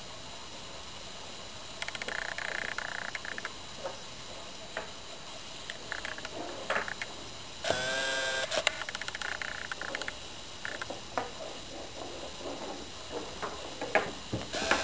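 Kittens playing on a tiled floor: scattered light taps and scuffles of paws and a toy ball, with a short pitched sound lasting about a second near the middle and stretches of soft hiss.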